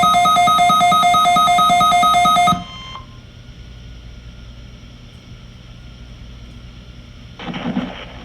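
A weather radio's electronic alert sounding a loud, rapidly pulsing two-tone beep for a NOAA Weather Radio test, cutting off about two and a half seconds in. Then comes steady hiss from the radio, and a broadcast voice starts near the end.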